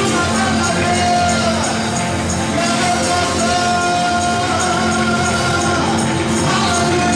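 Live praise-and-worship music: a man sings into a microphone over a band of electric bass, drum kit and keyboard, with long held notes and a steady high ticking beat.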